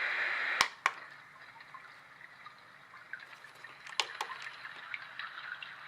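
A white noise machine's speaker plays a steady hiss that stops with two sharp button clicks under a second in. It then plays a quiet brook recording of trickling water with small, irregular drips and splashes.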